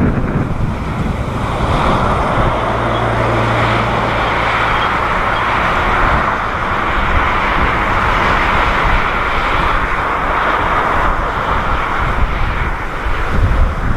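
Jet airliner's engines running loud and steady during the landing rollout just after touchdown.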